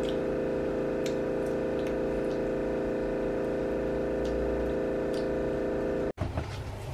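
Refrigerator running with a loud steady hum made of several tones at once, which sounds like something about to take off and, to its owner, is unusually and annoyingly noisy. A few faint clicks sound over it. It cuts off suddenly near the end.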